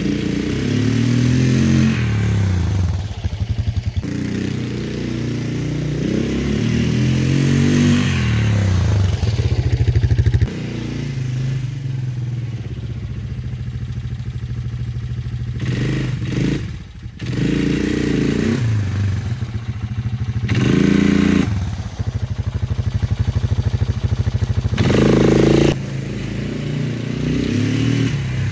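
1998 Honda Fourtrax 300 4x4 ATV's single-cylinder four-stroke engine, revving up and dropping back several times as the quad is ridden short distances and brought to a stop.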